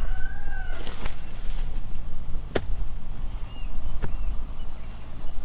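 A long-handled hand hoe chopping into grassy soil. It strikes three times, about a second and a half apart, digging ground for planting cassava.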